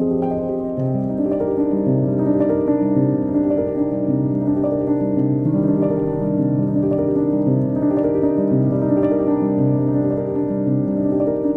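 Background music: a soft piano piece of sustained chords and gently moving notes.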